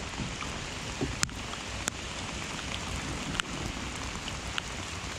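Steady rain falling on a pond's surface, an even hiss broken by a few scattered sharp ticks.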